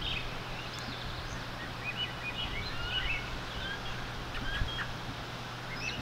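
Small birds chirping in the early-morning chorus, many short overlapping calls throughout, over a steady low hum.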